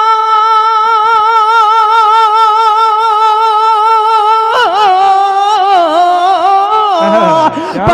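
A man singing a naat (Urdu devotional poem) through a microphone and sound system. He holds one long high note with vibrato for about four and a half seconds, then steps down through a run of wavering notes and slides lower near the end.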